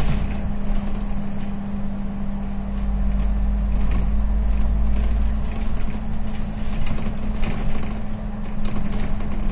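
Double-decker bus on the move, heard from inside on the upper deck: a steady engine hum with a constant low drone and a deep rumble that eases a little over halfway through. Light rattles and clicks from the bus body are scattered throughout.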